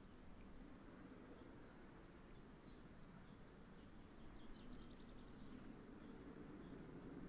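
Faint birds chirping over a low rumble that slowly swells: two Great Western steam locomotives, a Hall and a Castle, still far off as they climb Sapperton bank.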